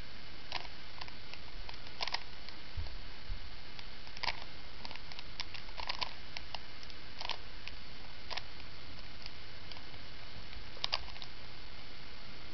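Plastic Rubik's Cube layers being twisted by hand during a solve: irregular clicks, several close together at times, over a steady hiss.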